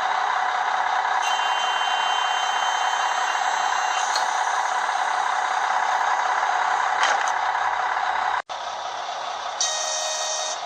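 Sound decoder in a TT-scale class 842 diesel railcar model playing recorded diesel railcar running sound through its small speaker. A high steady tone sounds for a few seconds early on, and a brighter tone sounds for about a second near the end. The sound drops out for an instant about two-thirds of the way in.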